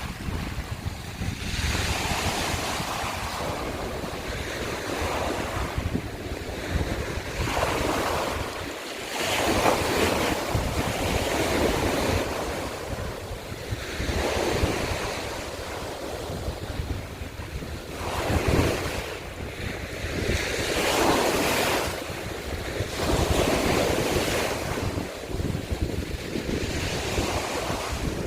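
Small sea waves breaking and washing over a shore of broken scallop shells, swelling and falling back in surges every few seconds, with wind rumbling on the microphone.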